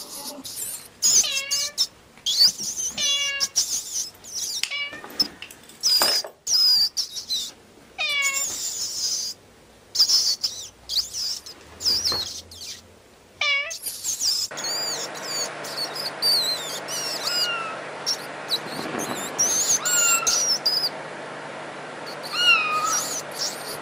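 High-pitched squeaks and short cries that fall in pitch, from a kitten playing with a caught mouse, coming in quick bouts with scuffling knocks between them. About halfway through, a steady low hum comes in under the fewer cries that follow.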